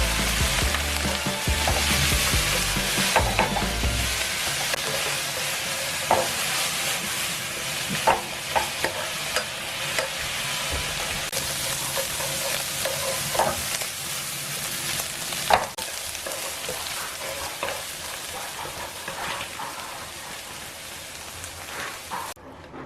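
Spinach and bacon sizzling in a frying pan as they are stir-fried, with a utensil knocking against the pan every second or two. The sizzle fades gradually and cuts off just before the end.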